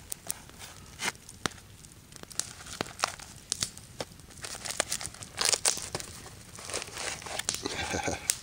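Parcel packaging being torn open and crumpled by hand: scattered sharp crackles, with longer stretches of tearing in the second half.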